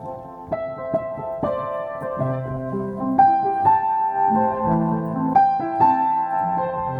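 Slow piano music: single notes and chords struck every second or so and left to ring over a sustained lower line.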